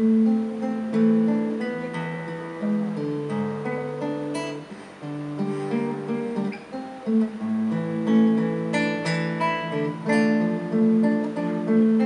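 Classical guitar played solo, a flowing piece of plucked notes and chords ringing over a bass line.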